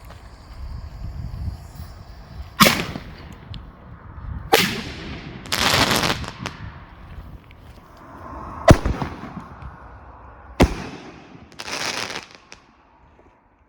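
Funke Bujny 2 50 mm airbombs firing: four sharp bangs spread over the stretch, with a burst of hiss after the second and the fourth.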